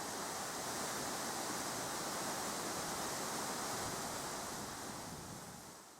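Steady, even hiss-like noise with no distinct events, fading out over the last second or so.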